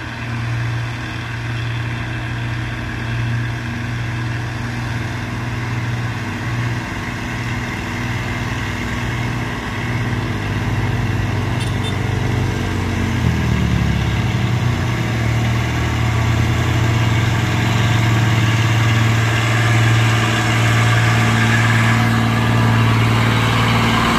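Truck engine running steadily, its pitch sliding down about halfway through and then holding, growing slowly louder toward the end.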